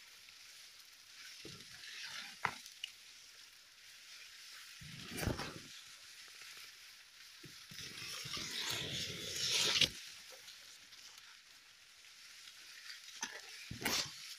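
Maize leaves rustling and crackling as someone pushes through the dense stalks, the leaves brushing over the microphone. The rustling comes in irregular bursts, the longest and loudest about two-thirds of the way in, with a few short sharp crackles.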